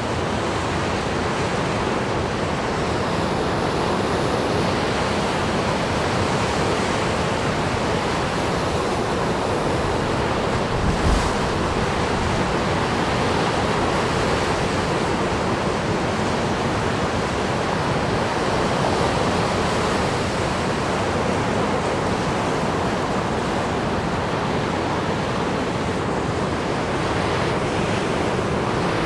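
Storm waves on Lake Superior breaking and washing steadily onto an icy, rocky shore, with wind on the microphone. A brief low thump comes about eleven seconds in.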